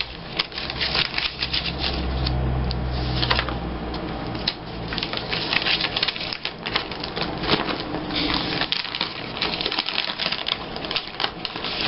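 Paper and scrapbooking materials being handled on a tabletop: rustling with many quick clicks and taps.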